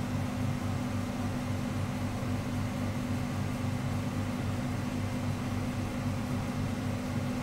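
Steady low mechanical hum under a faint even hiss, like a fan or appliance running.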